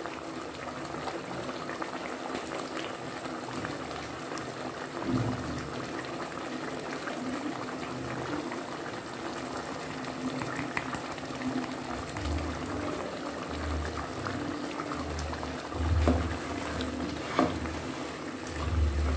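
Chicken curry simmering in a pot, a steady bubbling. In the last several seconds a few dull low thumps come as a wooden spoon stirs the chicken in the sauce.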